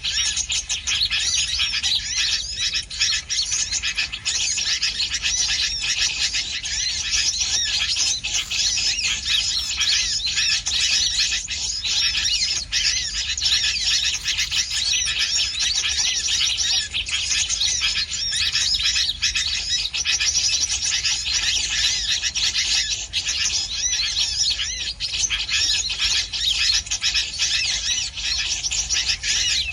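Small birds chirping and twittering densely and without a break, many quick high calls overlapping.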